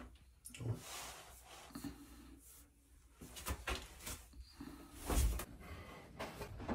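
Scattered small knocks, bumps and rustling of things being handled and moved around a house, with one louder thump about five seconds in.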